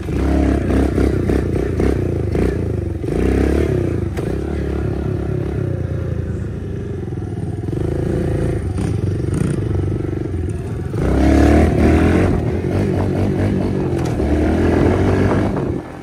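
2016 Kawasaki KLX110 pit bike's small air-cooled four-stroke single-cylinder engine being ridden hard, revving up and down as the throttle opens and closes, with the strongest surges of revs about three and eleven seconds in.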